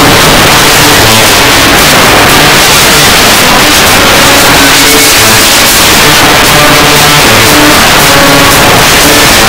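Loud music, heavily distorted: the recording is overloaded, so held notes sit under a harsh, noisy wash.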